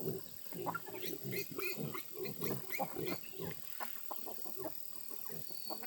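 Farm animals making many short, overlapping calls in an irregular stream.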